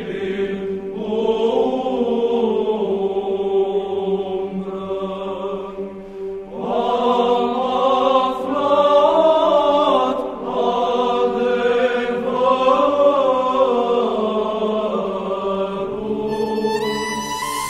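Eastern Orthodox liturgical chant: slow sung phrases over a steady held drone note, with a short break about six seconds in. Near the end a soundtrack music piece begins to come in.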